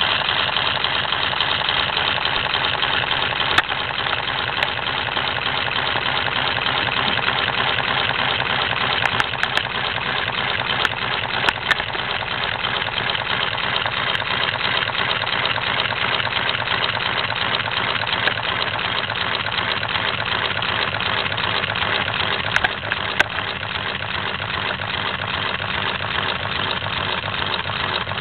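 Single-cylinder Lego pneumatic engine running fast on compressed air from a tank, its one piston and valve clattering in a rapid, steady rhythm, with a few sharper clicks now and then.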